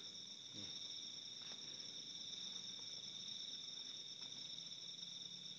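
Night insects calling steadily in a chorus, a continuous high-pitched trill at two pitches.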